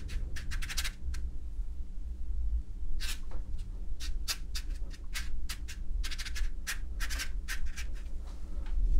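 Brush bristles scratching across textured watercolour paper as a thin rigger brush lays in fine strokes: short quick scrapes, some single and some in rapid clusters, over a steady low hum.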